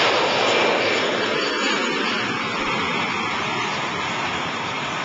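Airbus A320 jet airliner taking off, its engines at takeoff thrust as it climbs away, a steady rushing roar that slowly grows quieter.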